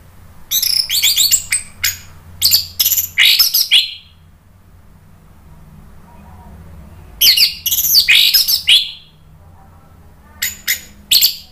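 Orange-headed thrush singing: two long runs of rapid, high-pitched notes, then a few short notes near the end.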